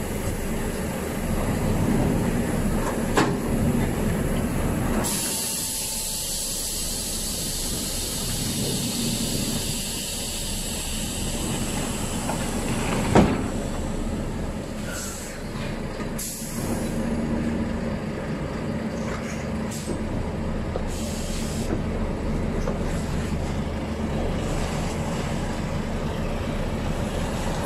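Volvo heavy truck's engine running as it moves a low-loader trailer slowly, with a stretch of hissing air in the first half and two sharp clanks from the rig, about 3 and 13 seconds in.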